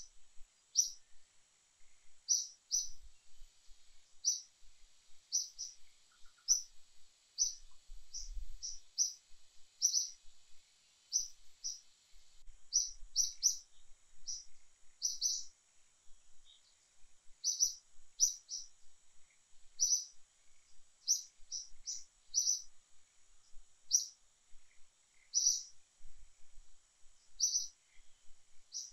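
A bird chirping: short high chirps, often in quick pairs or threes, repeating again and again over a faint steady high hiss.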